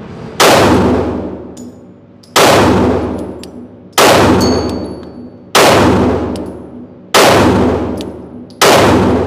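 Six shots from a Glock 43X 9mm pistol, fired slow and evenly about a second and a half to two seconds apart, each with a long echoing decay in the indoor range.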